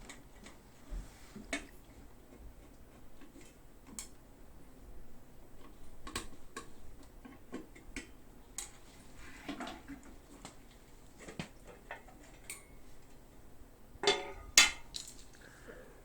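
Scattered small clicks and taps of hard parts being handled while the pump's fuse holder is opened, with a louder clatter of a few knocks near the end.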